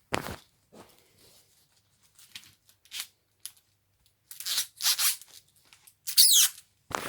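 Paper packaging being handled and torn in a series of short crinkling, tearing bursts, the loudest a little before the end, then a dull thump.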